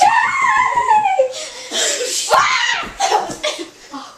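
Young women's voices singing in a high pitch, breaking into shrieks and laughter about a second and a half in.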